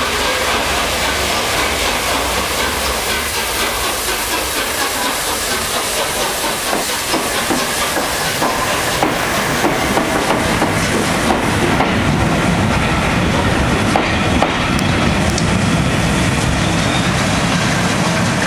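Trains passing at close range: a Class 313 electric unit arriving and the A1 Pacific steam locomotive 60163 Tornado with its coaches running past. Their wheels make a steady noise on the rails that grows somewhat louder in the second half.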